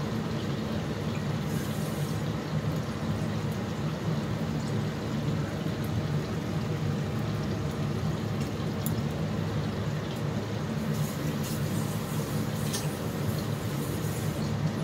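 Prawns cooking in masala in a metal kadhai: a steady sizzle and bubble of frying, with a few faint ticks.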